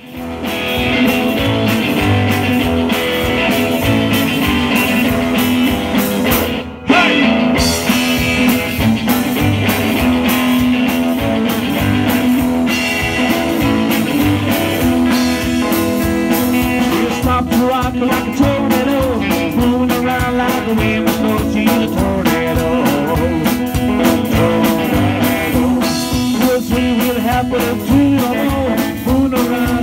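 Rockabilly band playing live through a PA: hollow-body archtop guitar, electric guitar, upright double bass and drum kit. The level drops briefly about seven seconds in, then the music comes back in full.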